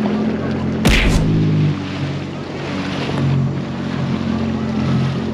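Sea-Doo jet ski engine running under way, a steady low hum mixed with the rush of water and wind. There is a brief loud rush about a second in.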